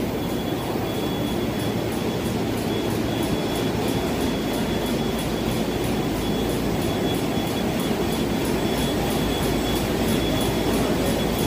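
Offset printing presses running: a steady, loud mechanical din with a fast, regular clicking and a thin, steady high whine.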